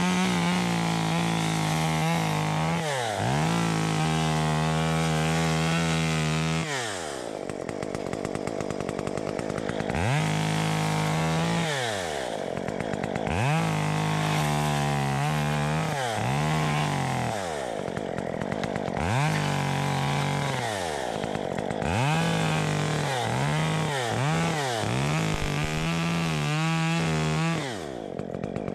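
Stihl two-stroke chainsaw cutting palm fronds. The engine revs up to full throttle, holds for a few seconds under cut, then drops back toward idle, over and over.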